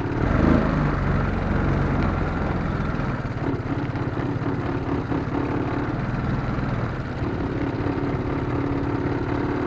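Engine of an off-road vehicle running steadily at low speed, with a rushing noise over it.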